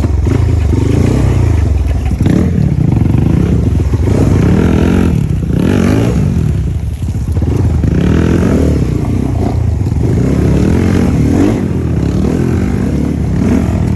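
Motorcycle engine running under changing throttle, its pitch rising and falling over and over.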